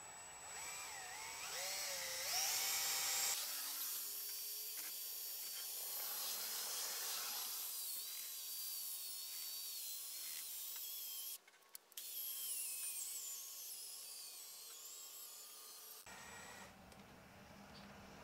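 Power drill spinning a paint-mixer paddle in a gallon can of paint, its motor whine rising in pitch as it speeds up and later drifting and falling, with a short break about eleven seconds in.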